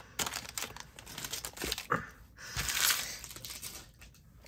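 Foil Disney Lorcana booster-pack wrapper crinkling and tearing as it is ripped open by hand, in several rustling bursts that die down about three and a half seconds in.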